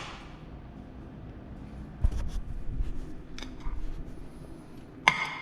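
Scattered light knocks and clicks of kitchen items being handled, with a louder brief noise near the end.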